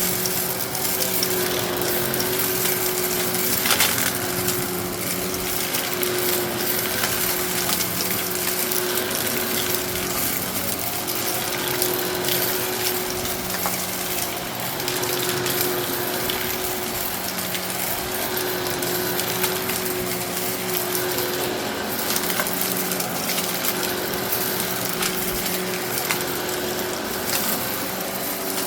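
Eureka Innova NEU700 upright vacuum running with its brushroll spinning, sucking up aquarium gravel: a steady motor hum under a constant crackle of small rocks rattling and clicking through the head.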